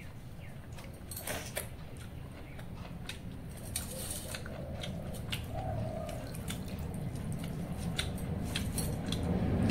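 Hand-eating sounds: fingers squishing and mixing water-soaked rice in a steel bowl, with scattered light clicks against the metal. A low rumble builds over the second half, like an approaching vehicle.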